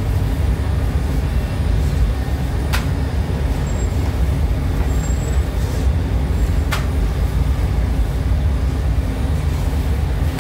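Steady low rumble of a rotary flatbread oven and the bakery's machinery running, with two sharp clicks about four seconds apart.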